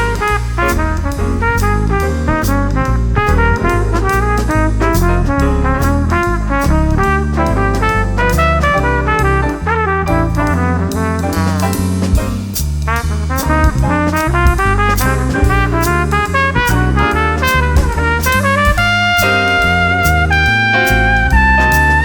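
Jazz combo playing, led by a fast trumpet solo over bass and drums, with the trumpet settling into longer held notes near the end.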